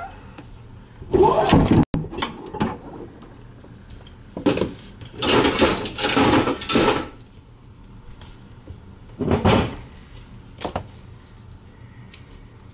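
Several short, separate bursts of rustling and clatter from objects being handled. The loudest come about a second in and around the middle.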